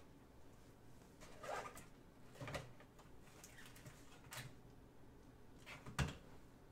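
Faint rustling and light handling noises of trading cards and their plastic holders being sorted, with one sharper click about six seconds in.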